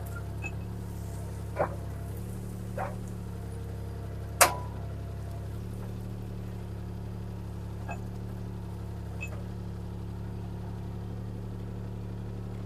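CAT 303C CR mini excavator's diesel engine running at a steady speed, with a few sharp clicks and knocks from the machine at work, the sharpest about four and a half seconds in.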